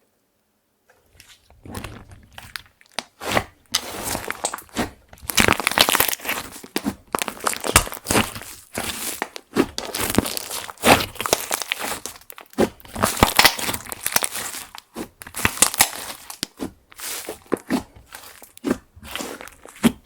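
Hands kneading and stretching clear slime mixed with makeup powder and glitter, giving sticky crackles, pops and squelches in an uneven run. It starts about a second and a half in.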